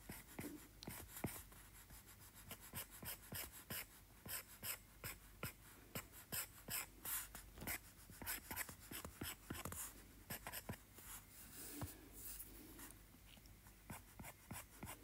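Stylus tip ticking and scratching on an iPad Pro's glass screen in quick, short sketching strokes, faint, several a second.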